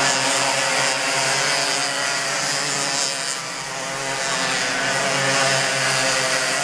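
Racing karts' small two-stroke engines running hard as a string of karts takes a corner, with a steady, buzzing engine note. It dips slightly about halfway through.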